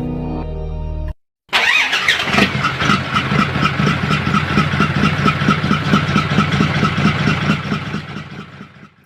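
Music ends about a second in, then a truck engine runs with a fast, even pulsing, fading out near the end.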